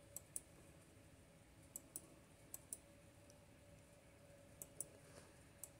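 Near silence broken by faint, sharp clicks, several of them in close pairs.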